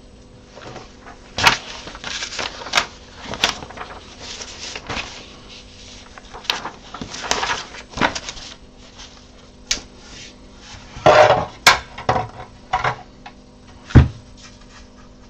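Workbench handling noises: irregular knocks and clatter of large 3D-printed plastic parts and tools being moved about, with a paper instruction sheet rustling as it is picked up and handled. The sharpest single knock comes near the end.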